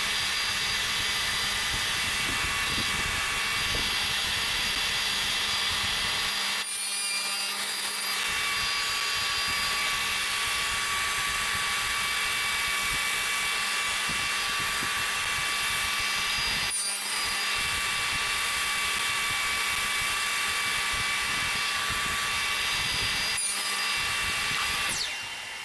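Table saw running and cutting spline slots into a 45° mitred wooden corner held in a jig: a steady motor whine with the noise of the blade in the wood, briefly dipping three times.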